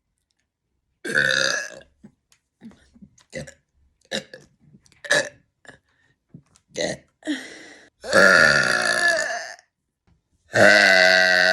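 A woman burping over and over: one burp about a second in, a run of short burps, then two long drawn-out burps near the end.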